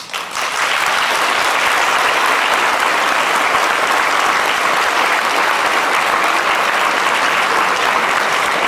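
Audience applauding: dense, steady clapping that builds up within the first half second and keeps going evenly.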